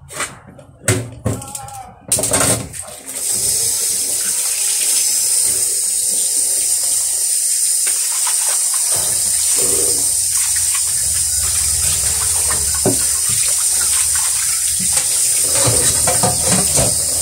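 Kitchen tap running steadily into a stainless steel sink while dishes are rinsed under it, with a few knocks of dishes being handled just before the water comes on about two and a half seconds in.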